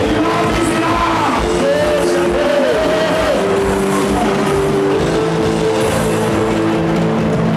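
Loud worship music from a live band, with held chords and a steady beat, and voices singing over it.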